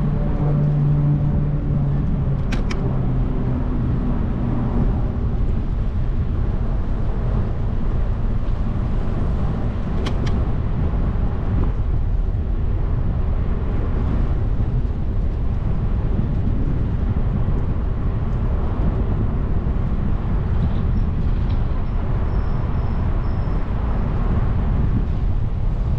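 Steady rush of wind and road noise on a bicycle-mounted camera riding along a street, with a vehicle's engine hum fading away in the first couple of seconds. Two sharp clicks come, at about three and ten seconds in.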